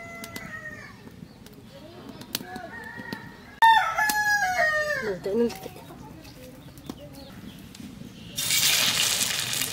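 A rooster crowing, the loudest crow about three and a half seconds in, with fainter calls before it. Near the end a sudden sizzle starts as fish kofta balls go into hot oil in a wok.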